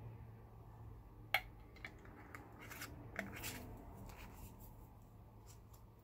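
Metal-rimmed lid set on a small glass jar of glitter glaze and screwed shut: a sharp click, then a run of small clicks and scrapes over the next few seconds, over a faint steady hum.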